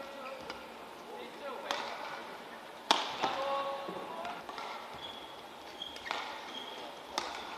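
Badminton racket strings smacking a shuttlecock four times in a rally, the hit about three seconds in the loudest, with short high squeaks between hits.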